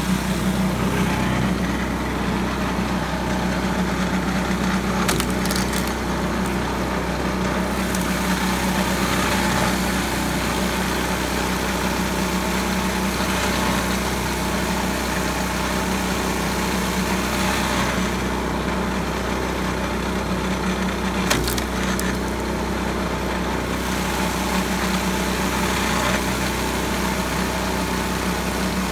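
Engine of a pitman-arm log splitter running steadily while logs are split, wood cracking and splintering. There are sharp cracks about five seconds in and a louder one about 21 seconds in.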